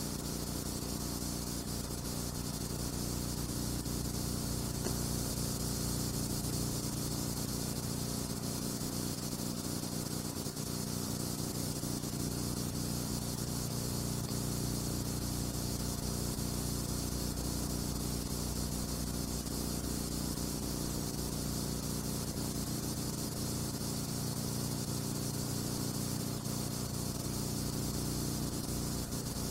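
Steady hiss with a low, even hum underneath and nothing else on top: the background noise of a silent film's soundless transfer.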